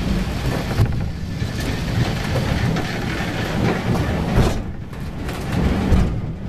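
Funicular car running up its rail track: a steady low rumble of wheels on rails, with a few louder knocks.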